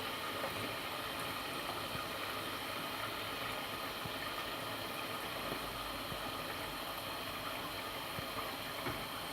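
Tinda (apple gourd) and chicken frying in spiced masala in a pot: a steady sizzle with a few faint clicks.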